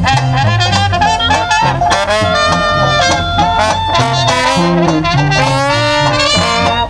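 Dixieland jazz band playing: a tuba walks a low bass line under trombone and other brass carrying the melody.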